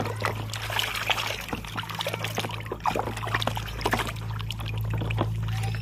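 Soapy water sloshing and splashing irregularly in a plastic basin as a hand scrubs a toy under the surface, over a steady low hum.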